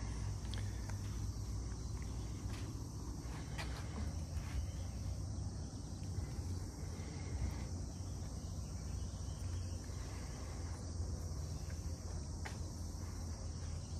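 Steady, high-pitched chirring of insects such as crickets, over a low rumble, with a few faint clicks now and then.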